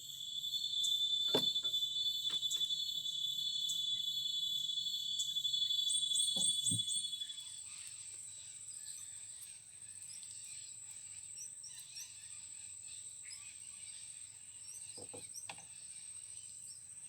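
Insects calling in a steady, high-pitched trill; the louder part of the chorus stops about seven seconds in, leaving a fainter, even higher trill. A few soft knocks sound now and then.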